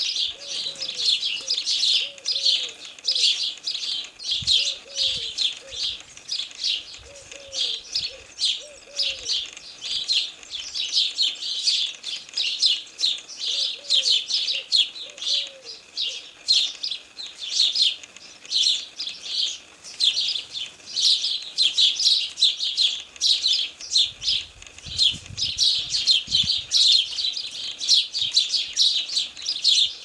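House sparrows chirping in a fast, unbroken stream of short, high chirps. Soft, low hooting notes in twos and threes sound faintly behind them during the first half.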